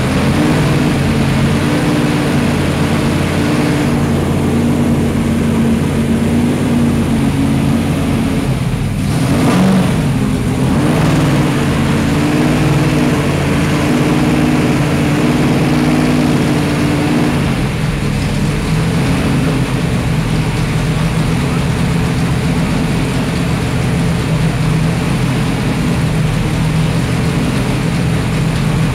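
Mopar Hemi V8 race car engine running at a steady idle, with one brief rise in revs about nine seconds in.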